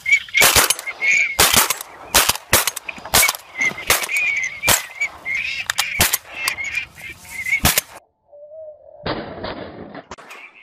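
A rapid string of shotgun shots, about a dozen in eight seconds, fired at waterfowl, while a flock of waterfowl calls overhead. About eight seconds in the sound cuts off to a brief hush, then returns as rougher outdoor noise.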